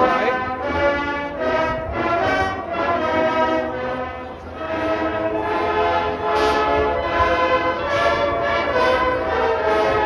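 Marching band brass section playing sustained, full chords that change every second or so.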